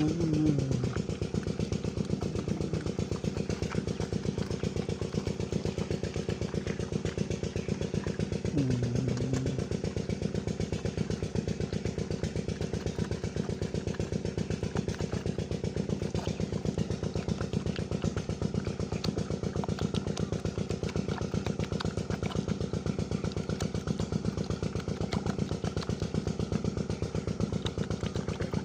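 An engine running steadily with a fast, even beat throughout. Two short, low calls of about a second each, one at the start and one about nine seconds in.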